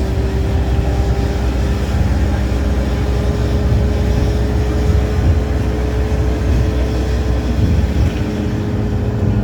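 Double-decker bus heard from inside while under way: a steady low engine and drivetrain rumble, with a steady whine that rises slightly in pitch.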